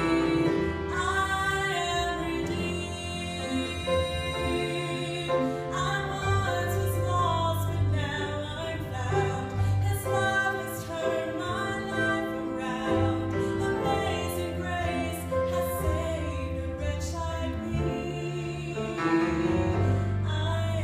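A woman singing a slow gospel song solo, accompanied by piano and acoustic guitar.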